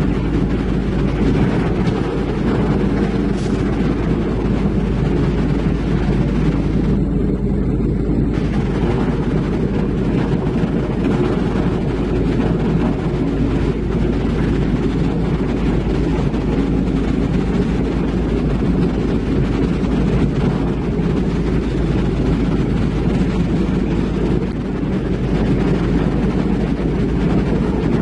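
Heavy-equipment diesel engine running steadily: a low, even rumble that holds without a break.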